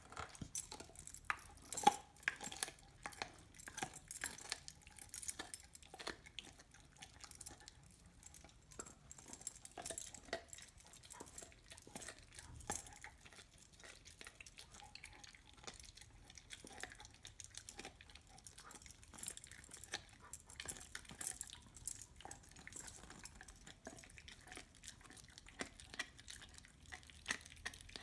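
A dog chewing and gnawing a raw bone: a continuous run of irregular clicks and crunches from teeth working the bone. The loudest click comes about two seconds in.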